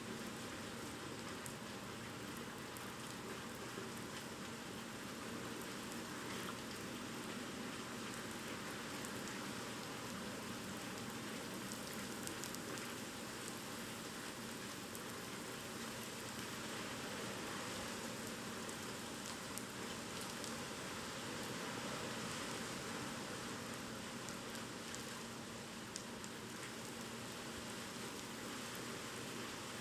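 Heavy typhoon rain falling steadily, with a continuous hiss of drops on surfaces and faint scattered patters.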